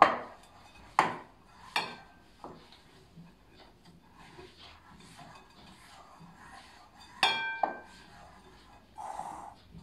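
Yeast dough being worked by hand in a glass mixing bowl, with knocks against the bowl: several in the first few seconds and one clink a little after seven seconds that rings on like struck glass.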